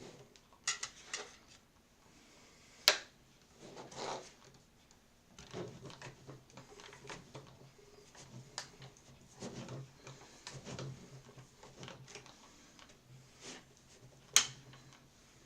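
Cuddlebug die-cutting machine being hand-cranked, forcing a thick watercolor-paper and metal-die sandwich through its rollers with an on-and-off low rumble and scattered clicks. A sharp click about three seconds in and another near the end.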